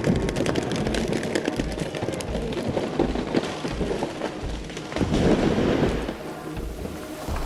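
A felled tree coming down: branches crackling and snapping, with a heavier crash about five seconds in.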